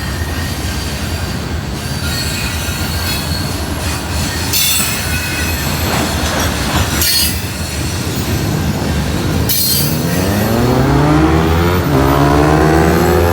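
CN freight train rolling past: steady rumble of the wagons on the rails, with several short, high wheel squeals. Over the last few seconds a pitched whine rises steadily in pitch.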